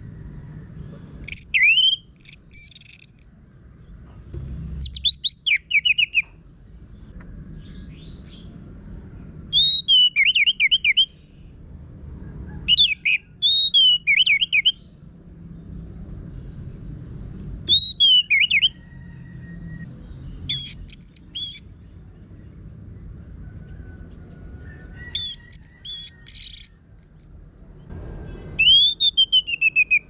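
Orange-headed thrush singing loud, rough-toned song phrases, about eight of them, one every three or four seconds. Each phrase is a quick run of falling whistles and trills.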